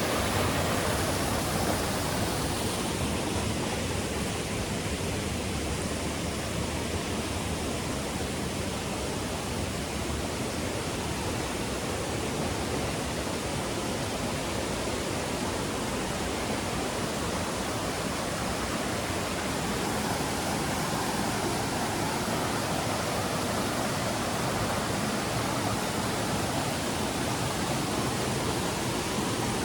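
Rushing water of a jungle waterfall, a steady full hiss with no breaks.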